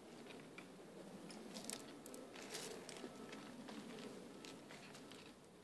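Faint, irregular crunches and clicks of crutch-built quad stilts stepping through dry grass.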